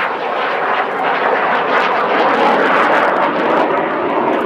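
Lockheed Martin F-35B's Pratt & Whitney F135 jet engine heard as loud, steady jet noise that swells slightly in the middle as the aircraft flies overhead. The aircraft is in STOVL mode, with its doors open for the lift fan and the swivelling exhaust nozzle.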